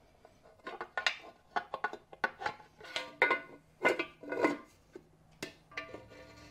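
Tall metal valve covers knocking and clinking against a small-block Chevy's cylinder heads as they are test-fitted: a string of sharp metallic knocks, with background music underneath.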